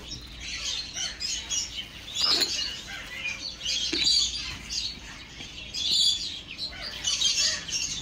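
Pet parrots chirping: many short, high calls overlapping without a break, with a couple of soft knocks about two and four seconds in.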